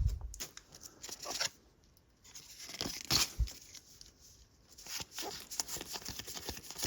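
Pokémon card booster pack's foil wrapper being torn open and crinkled, in short scattered rustles with a couple of brief pauses.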